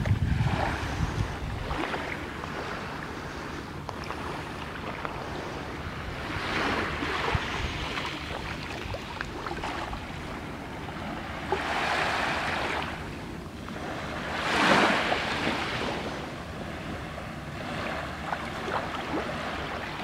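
Calm Black Sea surf: small waves washing up over a pebble-and-sand shore, each wash swelling and fading every few seconds. Wind rumbles on the microphone during the first couple of seconds.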